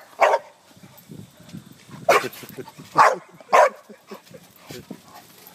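Dog barking, four short sharp barks spread over a few seconds, with fainter scuffling between them.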